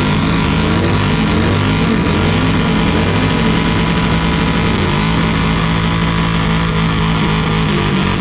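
Big touring motorcycle's engine revving hard in a burnout, the revs rising and falling over and over as the rear tire spins on the pad.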